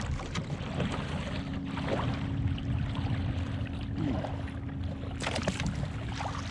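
Tandem kayak being paddled across calm lake water: the paddle blades dip and pull through the water, and water splashes and trickles along the hull in an even, steady wash.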